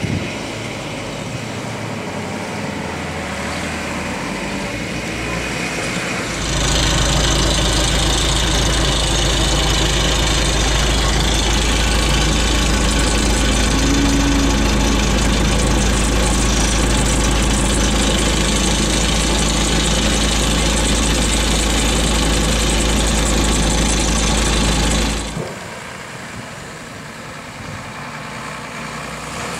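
Mercedes-Benz Unimog diesel engines running as the trucks drive off-road. The middle stretch is much louder, with a heavy steady low rumble.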